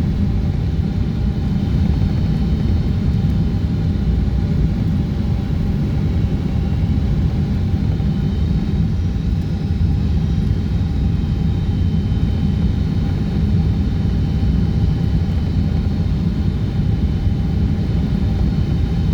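Boeing 777-200ER cabin noise on the descent to land: a loud, steady rumble of engines and airflow, with faint steady tones above it.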